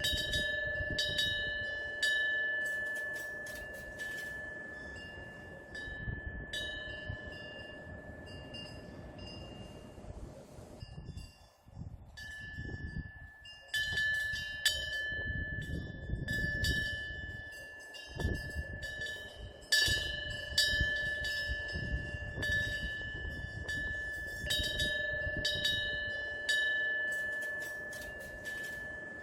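Korean temple wind bell (pungyeong), a small metal bell hung from the eaves and swung by a fish-shaped plate on its clapper. It is knocked irregularly by the wind and rings on with a steady two-note hum. The strikes come in clusters, thinning out for several seconds in the middle and picking up again after the middle, over a low rumble.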